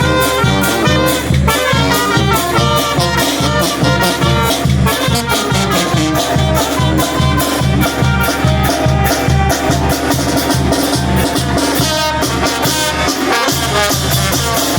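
Oaxacan village brass band (banda de viento) playing, with trumpets carrying the melody over a steady, quick bass beat.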